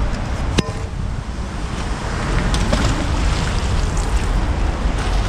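Wind buffeting the camera microphone: a steady, loud rushing rumble, with a sharp click just over half a second in.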